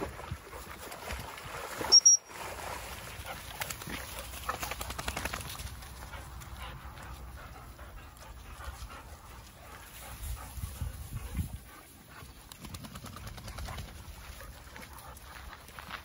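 Several dogs playing and running, with scattered dog noises. A short, loud, high-pitched sound comes about two seconds in.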